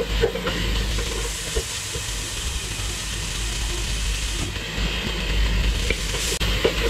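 Chicken cubes sizzling in hot oil in a pot, a steady hiss. A wooden spatula stirs and knocks against the pot a few times near the start and again near the end.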